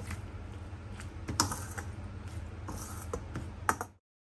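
Hand mixing a wet shredded-cabbage salad with sauce in a stainless steel bowl: soft rustling and squishing with irregular small clicks against the bowl, and a sharper tap about a second and a half in and again near the end, over a low steady hum. The sound cuts off abruptly just before the end.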